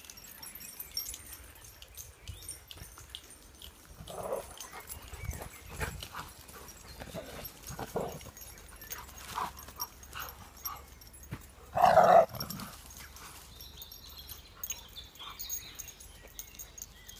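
Dogs out on a walk: scattered short dog noises and small clicks of movement, with one loud dog bark about twelve seconds in.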